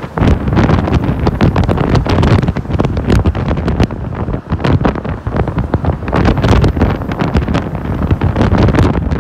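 Strong wind buffeting the microphone on the open top deck of a moving bus: a loud, gusty rumble that rises and falls unevenly.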